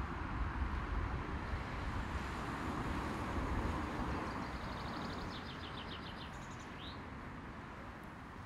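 Open-air ambience: a steady hum of distant traffic over a low rumble, with a small bird's rapid trill about five seconds in and a short chirp soon after. The whole sound slowly fades toward the end.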